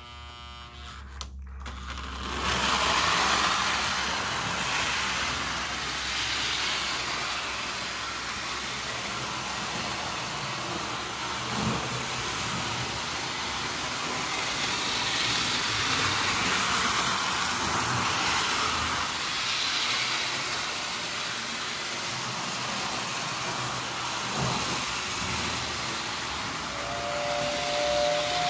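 Postwar Lionel 221 O-gauge toy steam locomotive running on three-rail track. Its electric motor and wheels make a steady whir that builds up over the first couple of seconds as it gets under way. Near the end its whistle tender blows a steady two-note whistle.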